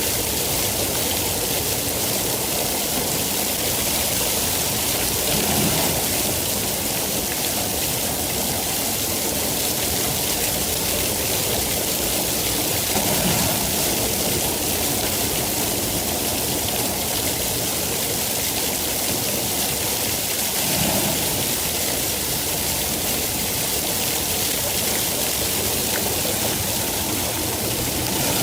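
Steady heavy rainfall, an even hiss of falling rain. Brief low swells come about every seven or eight seconds.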